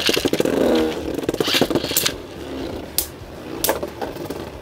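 Beyblade spinning tops whirring and scraping across a plastic stadium floor, with a buzzing whir in the first second. Three sharp clacks follow, about two, three and three and a half seconds in, as the tops strike each other.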